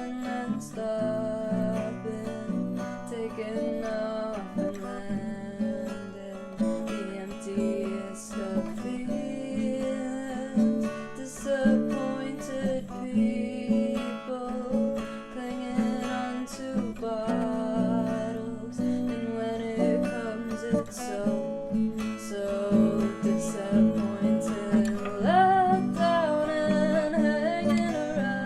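Acoustic guitar played in a steady, repeating picked pattern, its notes ringing into one another.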